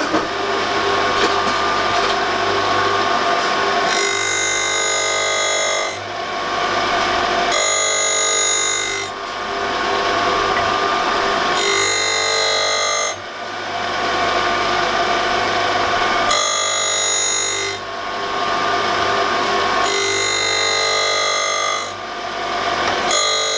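Surface grinder's wheel spinning steadily while the table traverses back and forth. A harsh grinding sound rises each time the wheel crosses the saddle's top surface, about every four seconds. These are light finishing passes of two thou per cut, flattening a worn slide.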